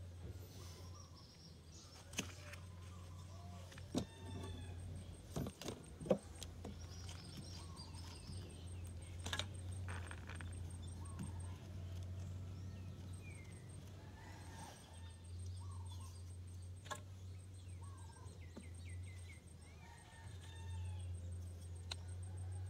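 Birds chirping over a low steady hum, with a few sharp knocks and clicks of a knife cutting into a firm green fruit. The loudest knocks come about four and six seconds in.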